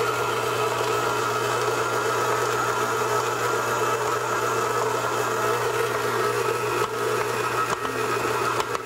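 KitchenAid Heavy Duty stand mixer running steadily, its motor whirring as the flat beater turns through stiff gingerbread dough.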